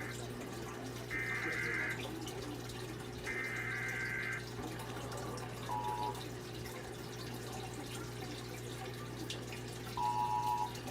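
Faint Emergency Alert System data bursts over steady receiver hiss and a low hum: two warbling, roughly one-second bursts of the digital alert header about a second and three seconds in. Brief, lower two-tone electronic beeps follow about six seconds in and again near the end.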